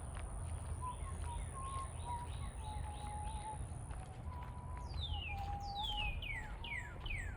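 Songbirds chirping: a run of quick, falling chirps comes thick about five seconds in, with a thinner wavering whistle earlier on, over a steady low rumble.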